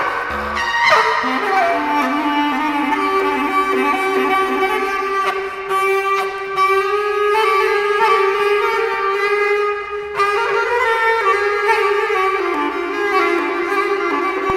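Bass clarinet playing solo: a short rising phrase, then one long held note lasting several seconds with its pitch wavering slightly, stepping down to a lower note near the end.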